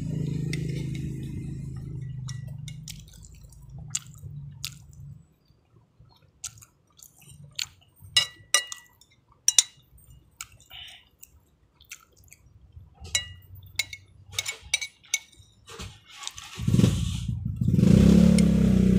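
Eating from a plate: a metal spoon clinking and scraping against the plate in quick clusters of sharp clicks, some with a short ring. About two seconds before the end a loud, steady low sound with a pitched hum comes in.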